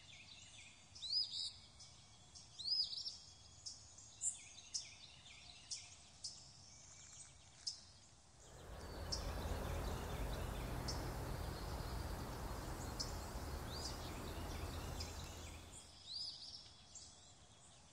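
Faint outdoor ambience with birds calling: short arched chirps repeating every second or two, and scattered high ticks. From about eight and a half seconds in, a steady hiss of noise runs for about seven seconds, then drops away.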